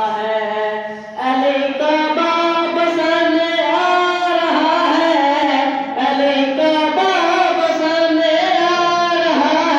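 A boy singing a devotional qasida solo into a microphone, in long held, wavering notes, with a short break for breath about a second in.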